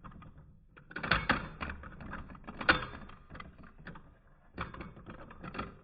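Two Beyblade Burst spinning tops, Wizard Fafnir F5 Ratchet Rise-H and Harmony Pegasus P5 10 Low-H, spinning and knocking against each other in a plastic Hypersphere Beystadium. They make an irregular clicking rattle, with louder clusters of knocks about a second in, near three seconds and near the end, as they wind down in a stamina battle.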